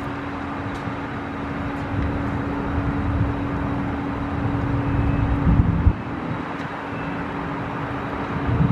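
Steady outdoor background noise: a constant low mechanical hum, with uneven gusts of wind rumbling on the microphone.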